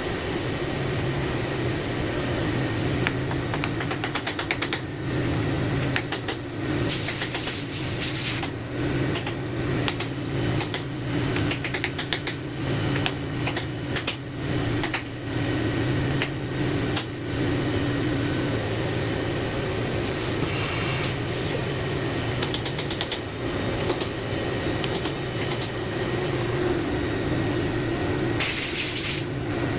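Steady mechanical hum, with scattered clicks and knocks and two short bursts of hiss, one about seven seconds in and one near the end.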